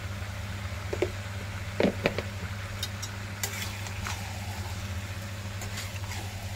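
Metal spatula stirring and scraping vegetables in a kadhai: a few sharp knocks about a second and two seconds in, then lighter scrapes, over a steady low hum and faint sizzle of the vegetables frying.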